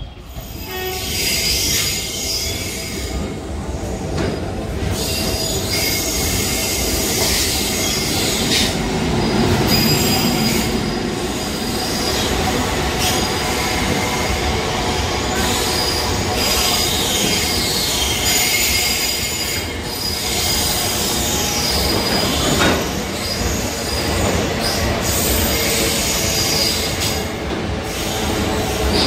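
Vapi–Virar passenger train running along the platform, its wheels squealing in shifting, gliding high tones over the steady rumble of the coaches. The sound swells up within the first second and stays loud.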